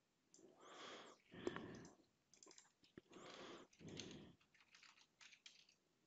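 Faint typing on a computer keyboard in a few short bursts of keystrokes, with an odd single click between them.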